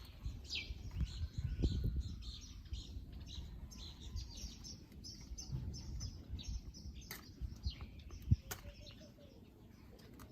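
Many small birds chirping, short high calls overlapping, over a low rumble, with a single sharp knock about eight seconds in.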